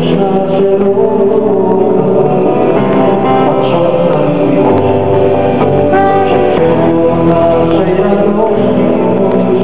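Live band music: a man singing over acoustic guitar, keyboard and bass, with a saxophone among the sustained melody lines.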